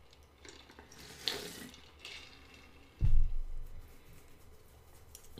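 A person drinking from a tumbler: soft sipping, slurping and swallowing sounds with a small click. About three seconds in comes a single low thump, the loudest sound.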